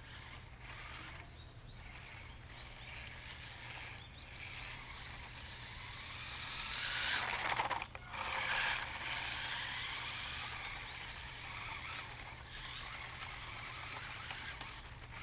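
Wltoys A232 1/24-scale RC truck running over a bumpy road: the electric motor and gears whine, with the tyres clattering on the rough surface. It grows louder as it comes close, about seven to nine seconds in, then drops back.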